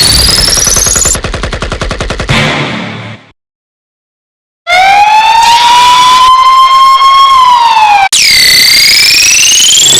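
A run of synthetic electronic sound effects: a rising sweep tone, then a rapid buzzing stutter that fades out. After about a second and a half of silence comes a siren-like tone that climbs slowly and then dips, cut off by a click, and a new rising sweep begins near the end.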